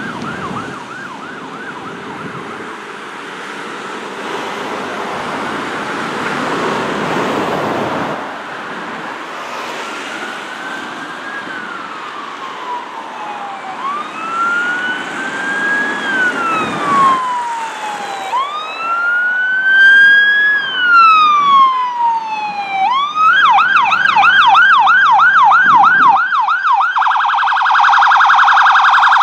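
Fire engine siren approaching through passing traffic: a slow wail rising and falling, which switches to a fast yelp about 23 seconds in and then to a rapid warble near the end, growing louder as the truck nears. Passing cars are heard in the first several seconds, with a brief fast yelp at the very start.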